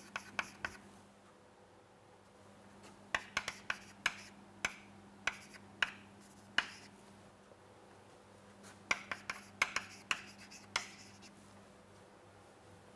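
Chalk writing on a chalkboard: groups of sharp taps and short scratches as letters are written, with a pause of about two seconds between the groups.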